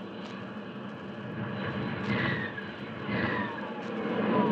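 Radio-drama sound effect of jet aircraft in flight: a steady rushing engine noise with a few falling whines, growing louder toward the end as the jets descend.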